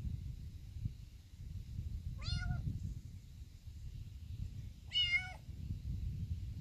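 Young kitten meowing twice, two short high meows about two and a half seconds apart, the second louder.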